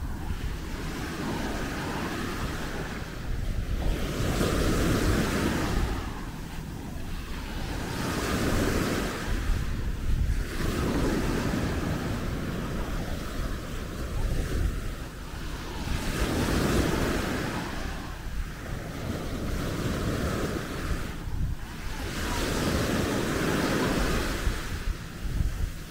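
Sea waves breaking on a beach, the surf swelling and washing back about every four to five seconds, with wind rumbling on the microphone.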